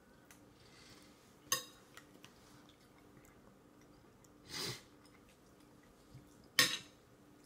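Green plastic baby spoon knocking and scraping in a stainless steel bowl: two sharp clinks, about a second and a half in and near the end, with a longer, softer scrape between them.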